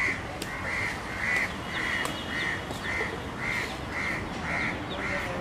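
A crow cawing in a long, even series, about two caws a second.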